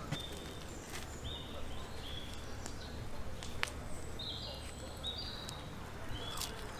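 Outdoor ambience with a bird calling: about six short, level whistled notes, some stepping up or down in pitch, with a few sharp clicks in between.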